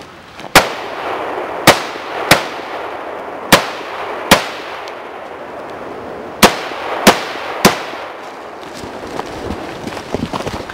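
Barrett REC7 semi-automatic AR-style rifle firing eight single shots in uneven strings of two and three, about half a second to a second apart, each crack trailed by a rolling echo. Quieter clicks and rustling follow near the end.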